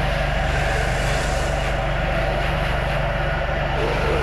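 Pressure washer running steadily while its wand sprays soap through a low-pressure soap tip: a constant motor hum under the hiss of the spray.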